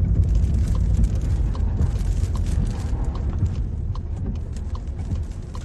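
Strong storm wind buffeting the microphone: a deep, steady rumble with scattered knocks and rattles.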